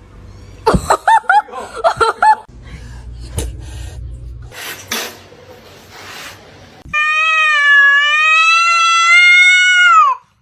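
A cat's loud, long yowl lasting about three seconds, held at a steady pitch and dropping at the end. Before it, about a second in, comes a quick run of short rising-and-falling calls, followed by some rustling and a few knocks.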